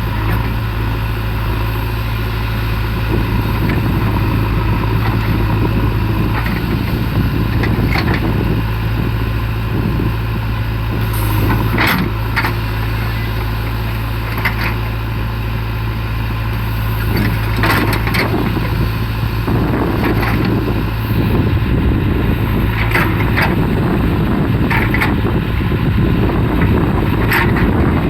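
JCB 3DX backhoe loader's diesel engine running under work, a steady low drone with sharp knocks every few seconds. The engine grows louder about two-thirds of the way through.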